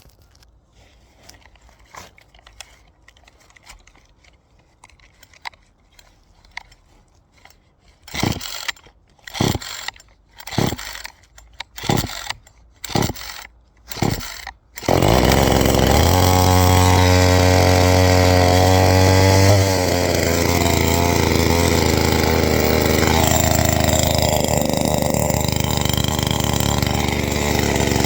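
Temu top-handle two-stroke chainsaw being pull-started. After some light handling clicks come about seven quick pulls of the recoil starter, roughly a second apart. On the last pull, about halfway through, the engine catches and keeps running. A few seconds later its steady high note drops and it runs on at a lower speed.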